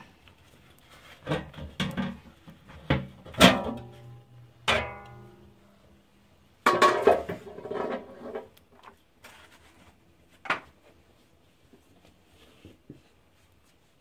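Large aluminium cooking pot and its lid handled: a run of metal clanks, two of them ringing on for a second or so, then a clattering scrape as the lid is lifted off and set down, and one last knock.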